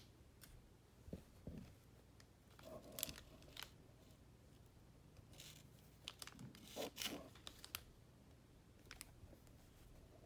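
Faint handling noises as squishy toys are picked up and shown: short scattered rustles, crinkles and light clicks, busiest about three seconds and seven seconds in.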